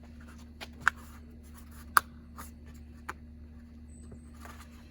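Close handling noises of plastic trim and wiring: light rustling with scattered small clicks, two sharp clicks about one and two seconds in.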